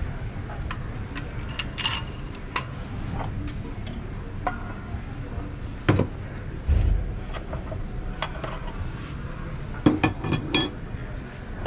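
Metal tools and transmission parts clinking and clattering as they are handled and set down on a workbench, with scattered sharp clicks, a knock and a heavy thump around six to seven seconds in, and a quick run of clinks near the end.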